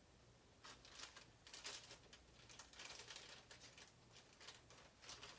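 Faint crinkling and rustling of a clear plastic bag being handled, in short irregular bursts.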